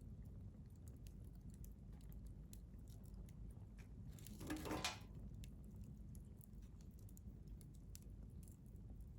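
Wood fire crackling in a stainless steel fire grill: scattered small pops and snaps over a low steady rumble, with one brief louder hiss a little past halfway.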